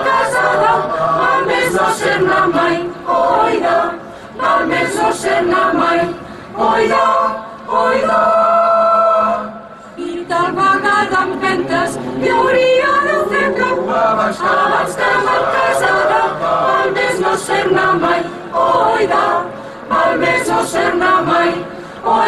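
Mixed choir of women's and men's voices singing a cappella in harmony, in phrases broken by short breaths, with one long held chord about halfway through.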